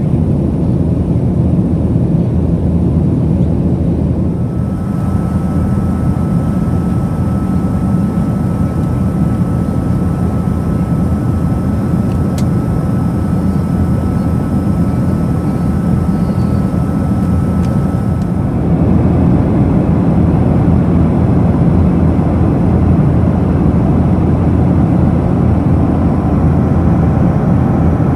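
Steady cabin noise of a Boeing 737-900ER in cruise: the even low rumble of its CFM56-7B engines and the airflow around the fuselage. A faint steady high tone sits over it through the middle part, with a single click near the middle.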